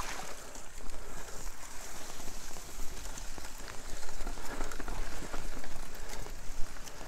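Mountain bike and rider crossing wet, muddy ground: an irregular spattering, crackling patter of tyres and feet in mud and water.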